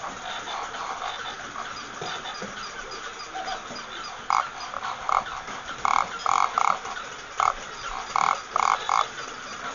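Battery-operated walking toy animal running, its motor and gears whirring with a fast steady clicking. From about four seconds in come clusters of short, repeated animal-like calls.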